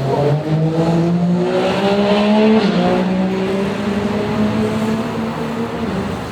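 Segway Snarler 600 ATV engine running: its pitch rises steadily for about two and a half seconds, drops suddenly, then holds nearly steady.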